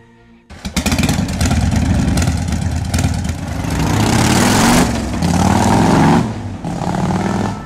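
Motorcycle engine running and being revved, coming in suddenly about half a second in after a brief quiet. Its pitch rises and falls in several surges, loud throughout and easing off near the end.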